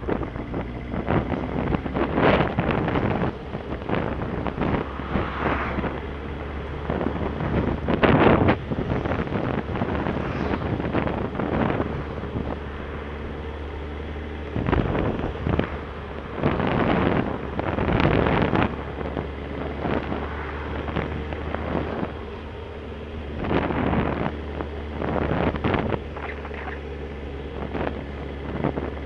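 Motorcycle engine running under way, with wind buffeting the microphone in repeated loud gusts over the engine.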